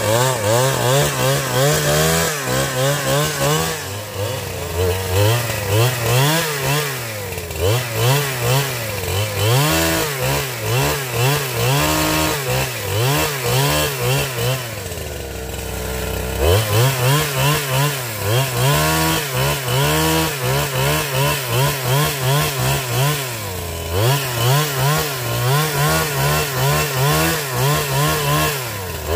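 Chainsaw cutting wood, its engine note rising and falling over and over as it works through the cut. It drops to a lower note for a moment about fifteen seconds in, then revs back up.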